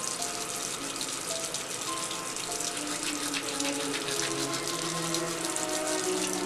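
A toothbrush scrubbing teeth: a wet, scratchy hiss from many quick strokes. Slow music of long held notes plays underneath.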